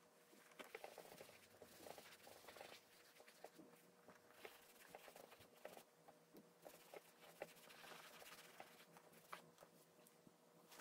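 Faint rustling and scattered light taps of a tack sponge working black boot cream into a leather riding boot.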